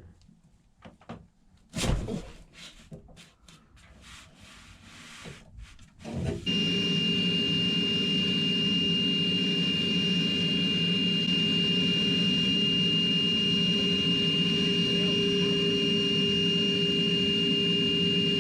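A few knocks and some rubbing, then about six and a half seconds in a loud electric motor starts and runs steadily with a high whine.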